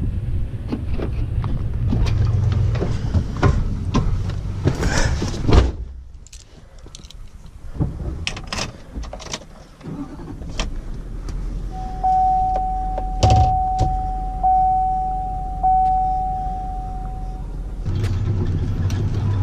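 Keys jangling and footsteps with wind on the microphone, then a sharp click of a pickup truck's door. Inside the cab, the truck's dashboard warning chime dings about four times, a little over a second apart, with a single thump among them. Near the end the truck's engine runs with a steady low hum.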